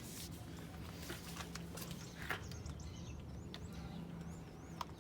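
Birds chirping and warbling in the background from about halfway in, over a steady low hum, with a few faint clicks.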